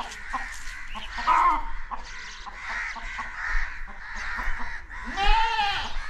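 Crows cawing repeatedly, with one loud, long caw about five seconds in.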